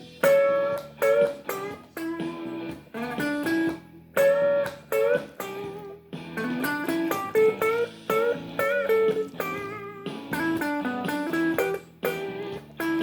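Blues guitar lead: single picked notes and short phrases with string bends, in a loose rhythm with brief pauses between licks.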